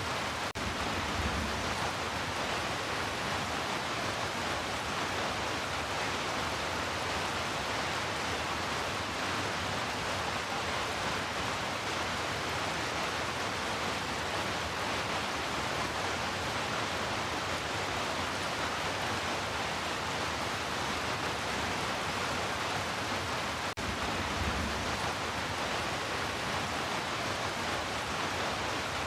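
Heavy rain falling in a steady, even hiss, with two very brief dropouts, one near the start and one about 24 seconds in.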